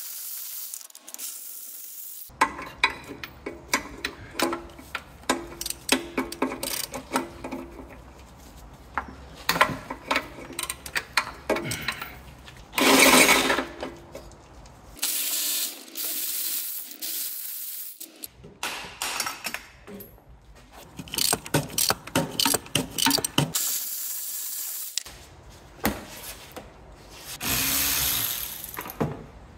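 Hand tools undoing the gearbox and starter motor bolts on an Alfa Romeo 159: a ratchet clicking, with metal clinks, knocks and scraping. Several louder noisy stretches lasting a second or two are mixed in.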